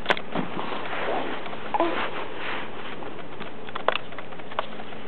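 A baby's brief soft coo a little under two seconds in, with a few light clicks and rustles against a steady hiss.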